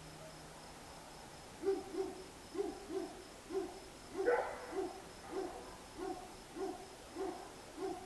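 A distant dog barking over and over, about two muffled barks a second, starting near two seconds in, with one louder, sharper bark about four seconds in.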